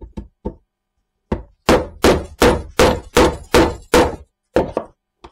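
Hammer blows on wood: a few light taps, then about ten hard strikes at roughly three a second, knocking off a nailed-on wooden drawer front.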